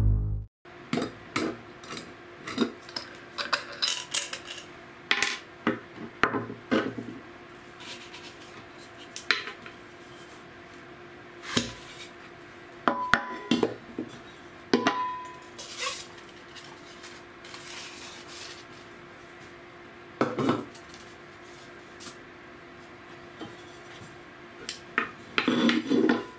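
Stainless steel mug being handled and taken apart: an irregular string of clinks, taps and scrapes of metal and plastic parts, with a short metallic ring twice about halfway through.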